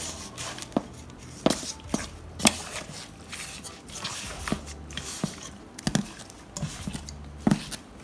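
Hands squishing chicken pieces through thick, wet jerk marinade in a metal bowl, making irregular wet slaps and clicks, about one a second.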